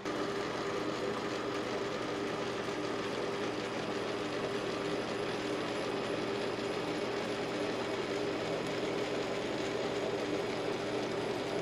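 Metal lathe running at a steady speed, a constant hum and whine from its motor and gears, while it turns a steel shaft being single-point threaded into an Acme screw.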